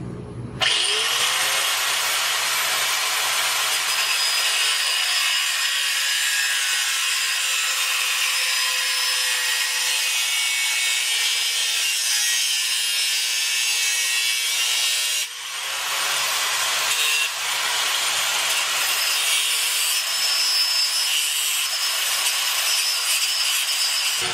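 Angle grinder with a cutting wheel spinning up and cutting through a steel screw and the washer welded to a bicycle frame's seat tube. It stops briefly about 15 seconds in, spins up again and keeps cutting.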